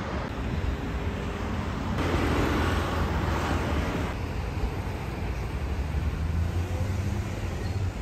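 Street traffic noise: cars running along the road with a steady low rumble, louder for a couple of seconds in the middle.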